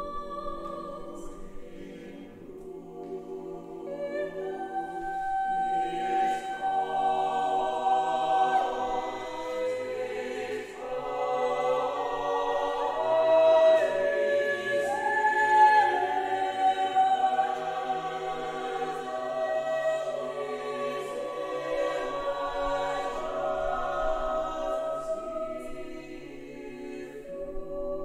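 Mixed-voice choir singing unaccompanied, holding long sustained chords that swell to a climax about halfway through and soften toward the end.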